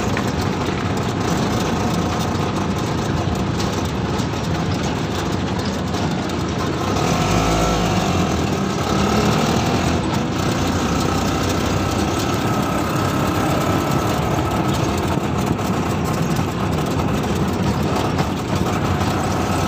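Auto-rickshaw engine running with road noise, heard from the passenger seat while riding, a little louder for a few seconds about seven seconds in.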